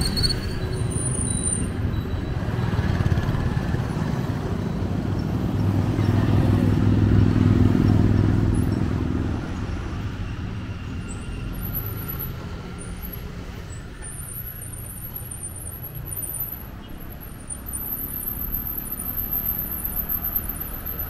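Street traffic with engines running. One vehicle passes close, loudest about six to nine seconds in, then the sound falls back to quieter traffic.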